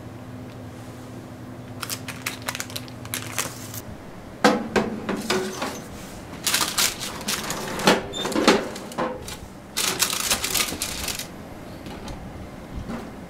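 Metal baking tray clattering and scraping against the rack of a countertop electric oven as it is slid in, in several bursts of rattling clicks. A low steady hum stops about 4 seconds in.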